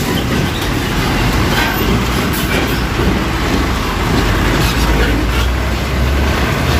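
Mitsubishi Fuso Fighter FN62 truck driving past close by. Its diesel engine runs with a steady low rumble under the noise of tyres and rattling body, with a few knocks as it rolls over the rough railway crossing.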